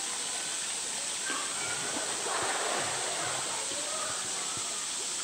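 Pool water splashing and sloshing as a polar bear swims and pushes a plastic toy, over a steady rush of moving water, with a little more splashing a little over two seconds in.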